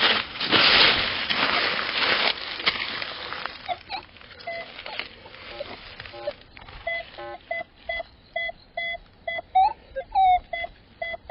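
A rustling, scraping noise, then a metal detector, likely a Minelab Manticore, giving short, pitched target beeps about twice a second as it sweeps over a buried target, some beeps bending up or down in pitch. The detector is signalling a target that reads around 64 to 65 on its ID scale.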